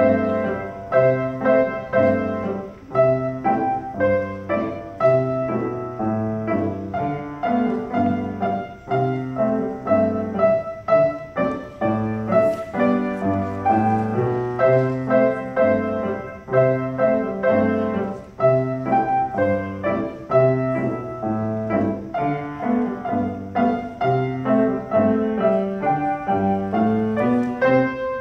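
Grand piano played as a duet by two children, a Christmas carol in a steady, even rhythm.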